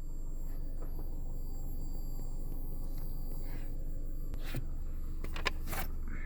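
Steady low electrical hum from a JBL GTR-1001 car amplifier, with faint high whining tones above it: the noise the owner suspects means the amp is failing. A few clicks and scrapes come about four and a half to six seconds in.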